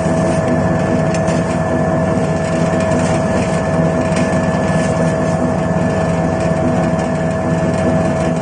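Screw-type peanut oil expeller running steadily, a constant mechanical hum with a steady whine, and a few light clicks over it.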